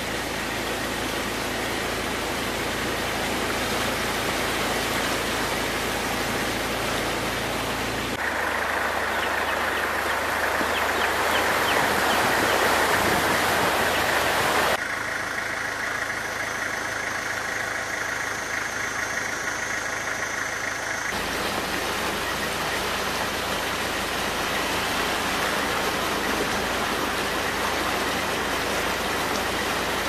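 Steady outdoor background noise with no clear single source, changing abruptly about 8, 15 and 21 seconds in. A low steady hum sits under the first part, and a thin high steady tone runs through the middle part.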